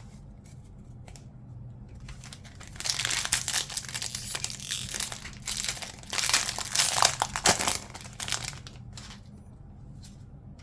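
Wrapper of a Panini WWE NXT trading card pack crinkling as it is torn open and crumpled, in two loud bursts starting about three seconds in. Light clicks of cards being handled come before and after it.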